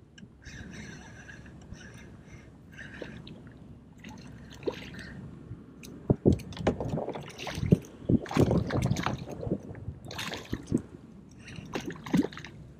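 Water slapping and sloshing against a plastic fishing kayak's hull, with irregular knocks and splashes that get louder about halfway through.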